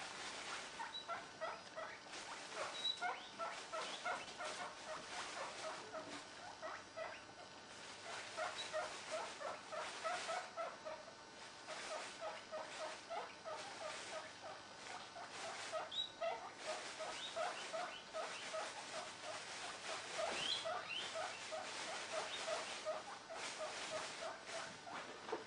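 Pet squirrel eating at a plastic food tub: rapid, fairly even runs of short clicks and little pitched notes, several a second.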